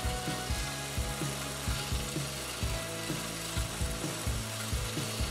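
Milling machine running with an end mill cutting brass, the part swung by hand around a pivot pin to round the end of a connecting rod. The cut comes as an uneven knocking, about three knocks a second, over the steady hum of the spindle.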